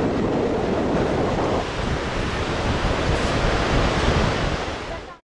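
Steady rushing noise of a whitewater river, with wind buffeting the microphone; it cuts off abruptly near the end.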